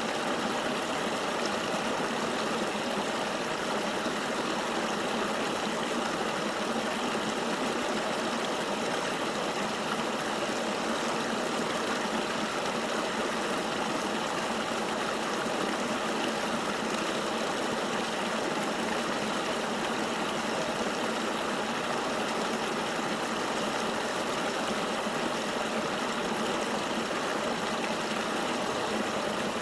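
River water flowing: a steady, even rush that does not change.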